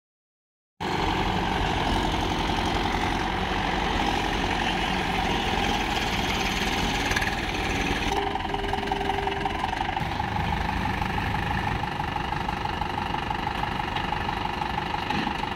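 Mahindra Yuvo 415 DI tractor's four-cylinder diesel engine running steadily.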